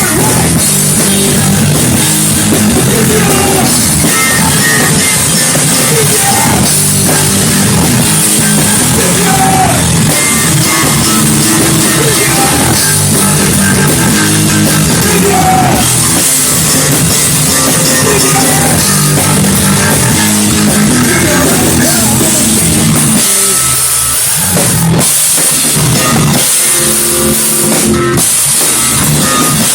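Rock band playing live: loud drum kit and guitar. The low end drops away for a few seconds about twenty-three seconds in, then comes back.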